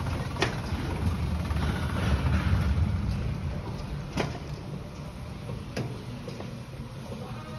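Floor scrubber running some way off, a low steady rumble that eases after about three seconds, with a few sharp ticks.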